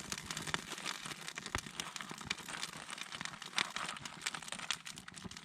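Fire crackling with many irregular small pops over a faint hiss, the charcoal fire lit with lighter fluid.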